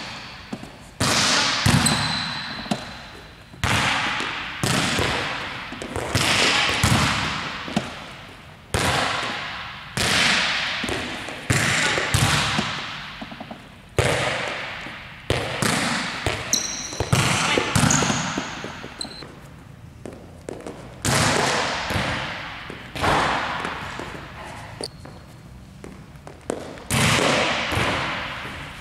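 Volleyball being struck again and again, a sharp smack every second or two, each one echoing in a large gym hall, as balls are played to a defensive player and passed.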